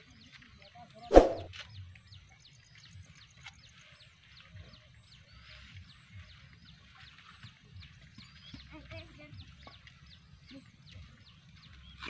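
Birds chirping over and over in short, quickly falling notes, with one loud squawk about a second in, over a low rumble.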